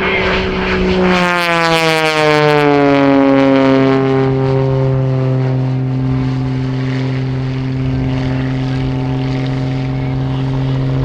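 Wolf Pitts Pro aerobatic biplane's 540 cubic inch Lycoming engine and propeller running hard. About a second in, the engine note drops in pitch over two seconds, then holds steady at a lower pitch.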